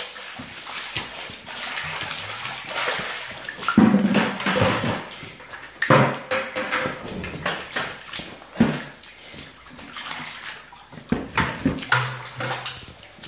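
Water splashing and sloshing in an ice-fishing hole, broken by many sharp knocks and clicks.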